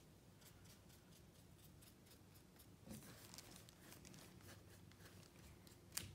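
Faint brushing of a paintbrush stroking paint across a canvas: a run of soft scratchy strokes, with a sharper tick near the end.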